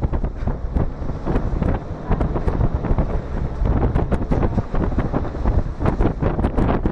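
Wind buffeting the microphone in loud, uneven gusts aboard a moving outrigger boat, over the rush and splash of spray thrown up along the hull and outrigger.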